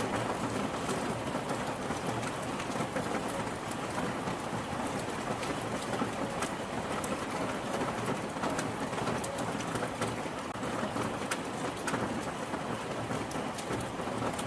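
Steady rain, with many single drops hitting a surface as sharp ticks over the constant hiss.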